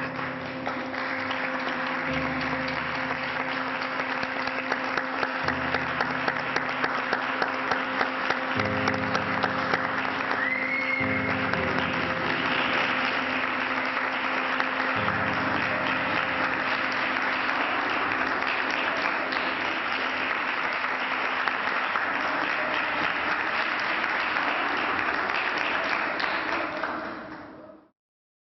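Audience applauding over acoustic guitar music, with a short whistle about ten seconds in. The sound fades out near the end.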